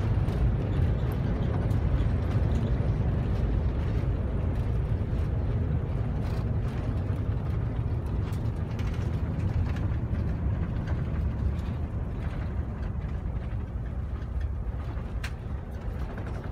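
Airbus A380 cabin noise: a steady low rush of engine and airflow noise that slowly eases off, with a few faint clicks.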